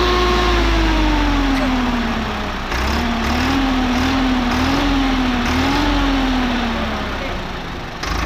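Swaraj 963 FE tractor's diesel engine being revved: its pitch rises and then sinks over the first couple of seconds, then wavers up and down in several short throttle blips before settling lower near the end.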